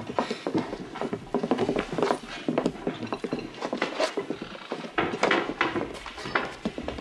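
Busy restaurant background: a dense, irregular clatter of crockery and cutlery knocking and clinking.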